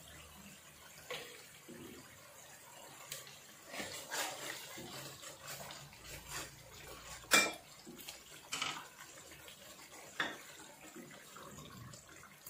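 Wooden spatula stirring frying spice paste for a beef curry in an aluminium pan: scattered scrapes and knocks against the pan over a low frying hiss, the loudest clack about seven seconds in. The masala is being fried down before the meat goes in.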